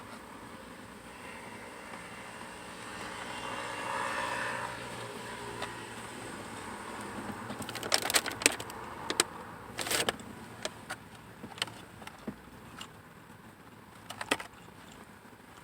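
A vehicle hum that swells and fades over the first few seconds, then a run of sharp crackles and clicks from about eight seconds in: the paper wrapper of a fast-food sandwich being handled and opened.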